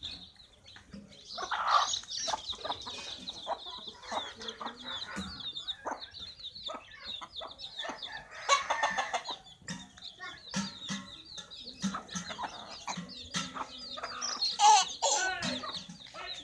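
A hen clucking while her chicks peep steadily in quick, high chirps, with a few louder bursts about two, nine and fifteen seconds in.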